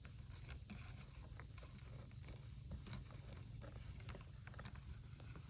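Faint, irregular small clicks and scratches of beetles' legs crawling over a plastic tray, over a low steady hum.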